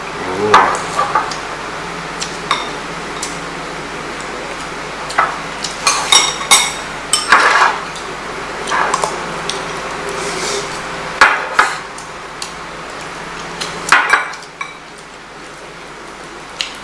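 Eating utensils clinking and knocking against bowls and dishes, a string of separate sharp knocks, some with a short ring.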